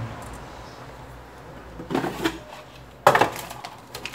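Small smartphone circuit boards being handled and set down on a silicone work mat: a few light clicks and knocks about two seconds in, then a sharper knock about three seconds in.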